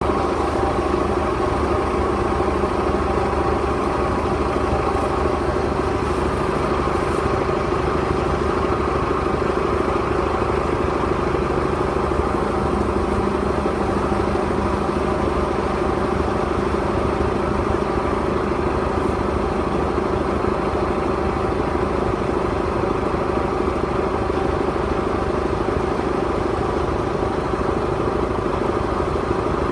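An engine running steadily at one constant speed, never revving up or down.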